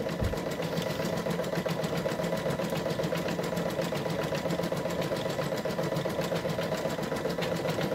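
Brother Quattro 2 6700D embroidery machine stitching out a design, its needle running in a fast, even rhythm over a steady motor hum as it lays down the underlay stitches of a fill on felt.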